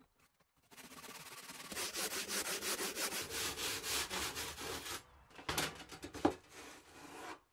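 Hand saw cutting through a soft insulating fire brick held in a jig, in regular back-and-forth strokes of about three a second. The sawing stops about five seconds in, followed by a few handling noises and a sharp knock.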